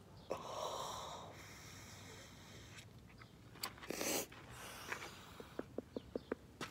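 A person's long breathy exhale, then two short sharp breaths, and a quick run of faint clicks near the end.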